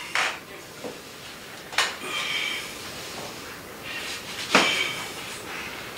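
A few sharp knocks and clicks from handling a porcelain toilet as it is set and squared over the closet flange; the loudest knock comes about four and a half seconds in.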